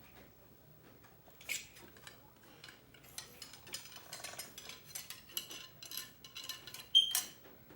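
Cleaning rod and patch worked through the barrel of a CVA Wolf muzzleloader to clear powder fouling after shooting: irregular metal scraping and clinking that starts about a second and a half in, with one sharper clink near the end.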